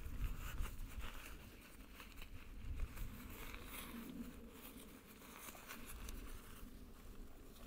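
Nylon stuff sack rustling and crinkling in short bursts as it is squeezed and rolled tight by hand, over a low rumble.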